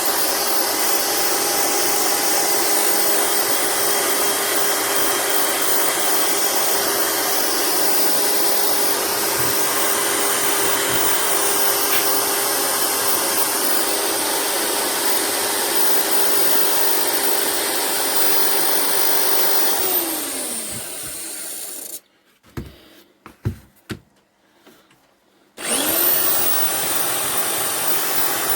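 Electric drill spinning a wire brush attachment against the metal of an old hand drill, running steadily. About 20 seconds in it winds down to a stop, a few clicks follow, then it starts up again and begins winding down once more near the end: a cheap £3 car-boot drill that keeps stopping.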